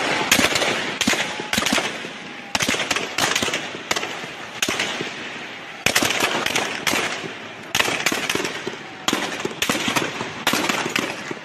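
Gunfire: many sharp shots, singly and in quick runs, irregularly spaced through the whole stretch, each trailing an echo.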